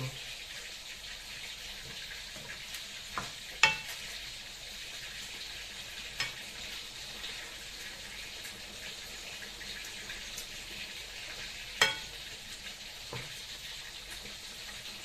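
Chayote and tofu sizzling in a pan of sauce on a gas stove, a steady hiss, while a metal ladle stirs and clinks against the pan a few times, the loudest knocks about 4 and 12 seconds in.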